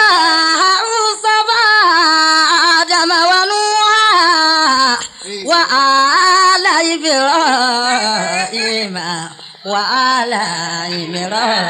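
A voice chanting in Arabic in a melismatic, Qur'an-recitation style, with long wavering held notes and no accompaniment. It drops to a lower pitch about eight seconds in.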